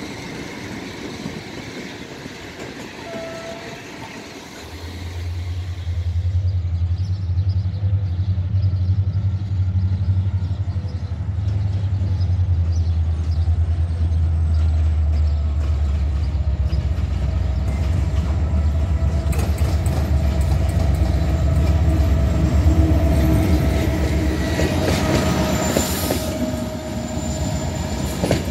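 Diesel-hauled passenger train arriving: a deep, steady locomotive engine drone builds about five seconds in and stays loud as the train nears. In the last several seconds the coaches roll past with wheel clatter on the rail joints and some brake or wheel squeal.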